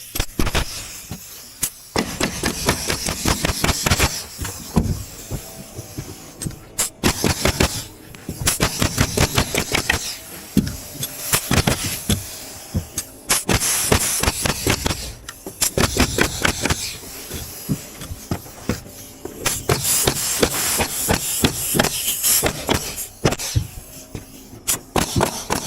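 House-framing carpentry: repeated sharp strikes on lumber in quick runs of several blows a second, with stretches of a steady high hissing noise between them.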